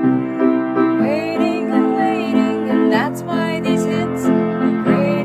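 Music: a song backed by sustained keyboard chords, with a melodic line gliding over them.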